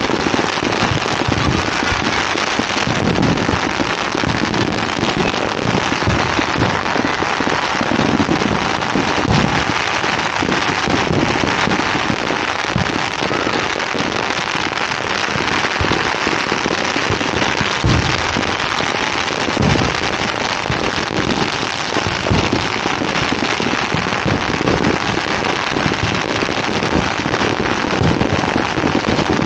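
Dense, continuous crackle of many firecrackers going off at once, with scattered deeper bangs among them.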